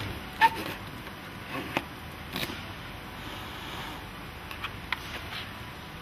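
Polypropylene strapping being drawn out through the slot of a cardboard dispenser box, with hands handling the strap and box: a sharp click about half a second in, then a few lighter clicks and taps spread through the rest, over a steady background hiss.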